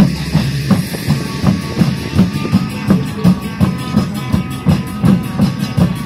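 Dance music with a steady, heavy drum beat, about three beats every two seconds.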